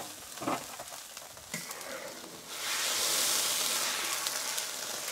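Seasoned broth boiling hard in a wok: a steady bubbling hiss that swells louder about two and a half seconds in.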